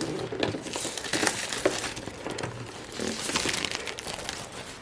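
Plastic packaging crinkling and rustling as a boxed computer power supply is handled, an irregular run of small crackles and clicks.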